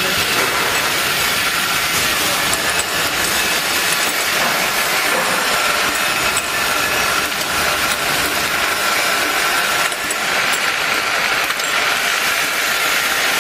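Six-head pneumatic bottle filling machine and its conveyor running, a steady mechanical whir and hiss with a faint high whine.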